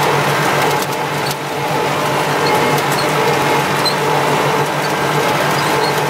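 Massey Ferguson 168 tractor's four-cylinder Perkins diesel running steadily under load, heard from the driver's seat, while it pulls a working small-square hay baler, with light mechanical clatter over the engine note.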